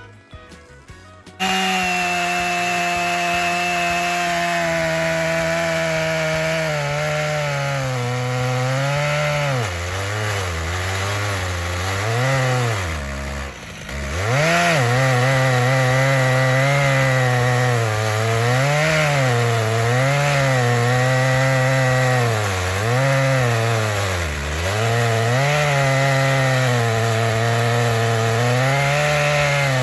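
Stihl MS 881 two-stroke chainsaw on a chainsaw mill, running at full throttle as it rips a cookie off a white oak log round. It comes in abruptly about a second and a half in. After a steady stretch its pitch sags and recovers again and again as the saw bogs under the load of the cut, dropping deepest about halfway through.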